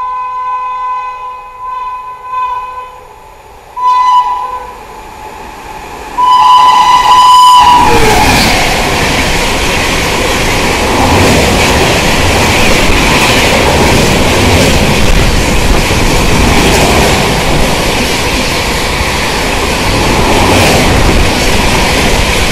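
WAP-7 electric locomotive horn sounding in several shrill blasts as the express approaches, with a short one about 4 seconds in and a long, loud one that ends as the locomotive passes about 7.5 seconds in. Then the superfast passenger train rushes past at about 130 km/h with a steady loud rumble and rapid wheel clatter over the rail joints.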